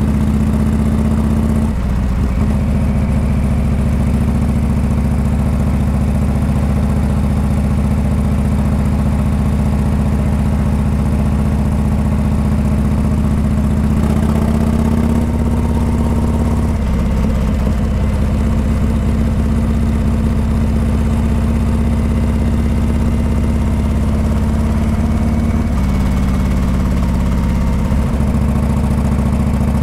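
Harley-Davidson Heritage Classic 114's Milwaukee-Eight V-twin running through a Rinehart exhaust while riding, a loud low beat. Its note steps down and picks up again about two seconds in, around the middle and near the end.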